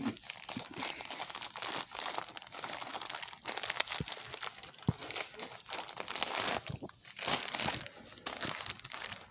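Plastic bag being handled and unwrapped by hand: continuous irregular crinkling and rustling with a few sharper crackles.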